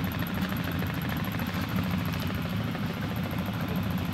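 ATV engine idling steadily, a low even throb, kept running while the quad sits in deep water with its CVT belt housing flooded.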